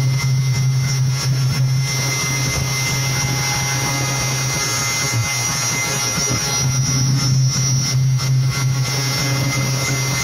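Giant DJ speaker stacks blasting a steady, deep bass drone with a hiss and thin high tones above it. The bass dips briefly about halfway through.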